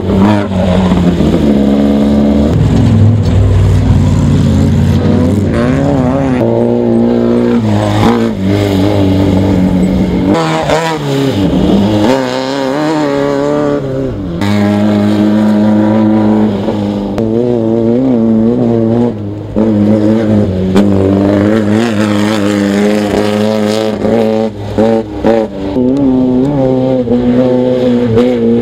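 Off-road race buggies and trucks speeding past one after another on a dirt course. Their loud engines rev up and drop away repeatedly as each vehicle passes.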